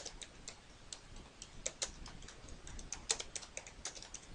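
Typing on a computer keyboard: irregular runs of keystroke clicks with short pauses between words.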